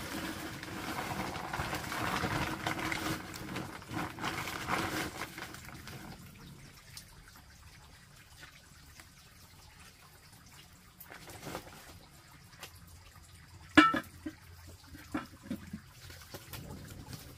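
Water pouring or running for about the first six seconds, then quieter handling knocks, with one sharp clank about fourteen seconds in, the loudest sound.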